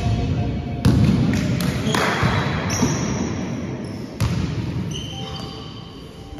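A basketball shot striking the hoop with a sharp bang about a second in, then the ball bouncing on a wooden sports-hall floor, with a second bang a few seconds later. Short high squeaks of sneakers on the court come through in between.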